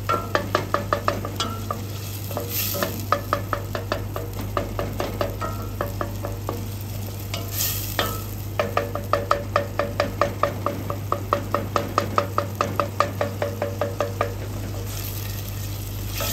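Wooden spoon stirring briskly in a stainless steel stockpot, knocking against the pot in quick runs of about five taps a second, each with a short metallic ring, with brief pauses between runs. Underneath is a soft sizzle of diced onion and potato sautéing.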